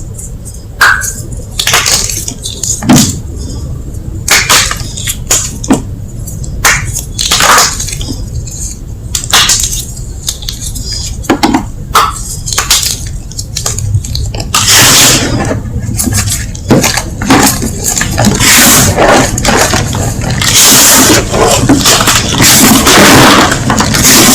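Gym chalk being crushed, crunching and snapping in a string of sharp cracks that come thicker and thicker until, about three quarters of the way in, they run together into a steady crumbling.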